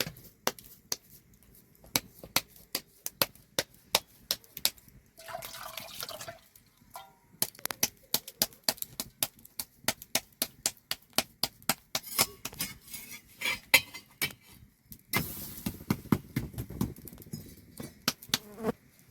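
A long run of sharp, irregular clicks or knocks, a few a second, with a short hiss about five seconds in and a louder rough rustling noise near the end.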